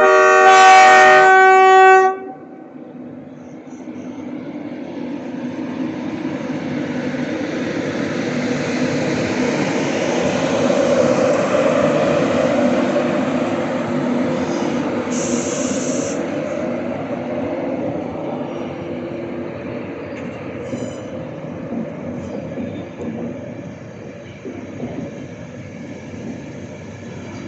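Horn of a Class 91 electric locomotive sounding one steady note for about two seconds. Then the InterCity 225 set pulls away: its running noise swells to a peak about ten seconds in and slowly fades, with a short high hiss about fifteen seconds in.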